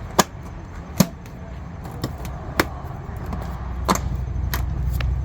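Plastic body panel of a Can-Am Spyder RT being pressed onto its mounting tabs, snapping into place with a handful of sharp clicks spread over a few seconds, over a low rumble.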